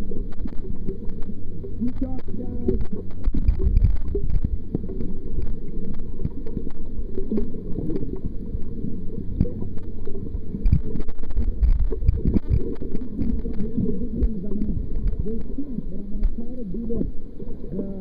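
Water and bubbles heard through a camera held under the surface: a muffled low rumble and gurgling, with many faint clicks.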